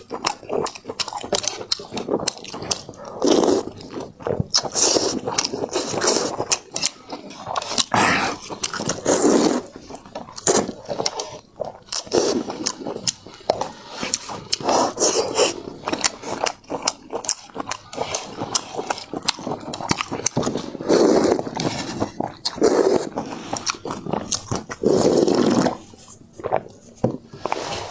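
Close-miked eating of hot and sour noodles: irregular chewing and slurping with many small wet clicks.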